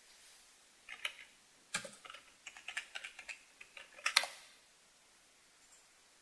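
Typing on a backlit computer keyboard: a quick, uneven run of key clicks starting about a second in, with one louder keystroke just after four seconds.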